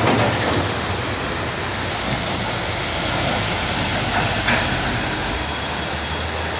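Heavy diesel trucks passing on a wet road: a flatbed trailer rig goes by close, then a Mitsubishi Fuso cargo truck comes on. Steady engine rumble with tyre hiss on the wet asphalt.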